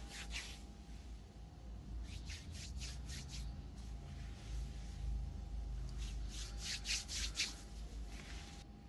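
Hands rubbing together, a dry swishing in spells of quick strokes: a short one near the start, then longer ones in the middle and toward the end.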